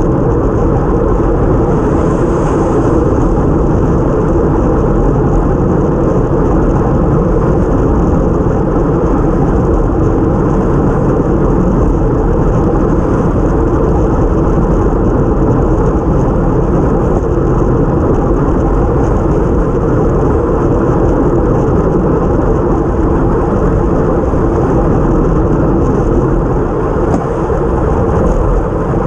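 Steady rush of wind over a cycle-mounted GoPro action camera at time-trial speed, mixed with tyre noise on a wet road.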